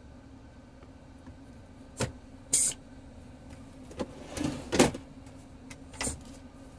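Steady low hum of an idling vehicle engine, with a few sharp clicks and knocks and one short hiss about two and a half seconds in; the loudest knocks come a little before five seconds in.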